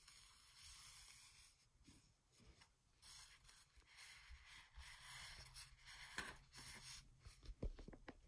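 Near silence with faint handling noise: soft rubs and a few light clicks, mostly near the end, as the opened compressor pedal is picked up and turned over.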